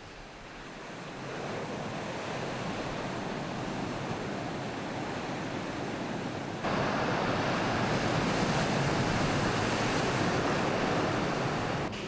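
Large ocean waves breaking and surging whitewater: a steady rushing noise that builds over the first couple of seconds and turns suddenly louder about seven seconds in.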